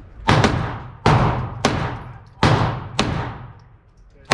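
Handgun shots fired one after another, about six in all, spaced roughly half a second to a second apart. Each sharp crack trails off in a long echoing decay.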